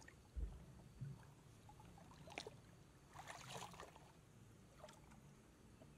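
Hands groping and sloshing in shallow muddy water: a few faint splashes and trickles between about two and five seconds in, after two soft low thumps near the start.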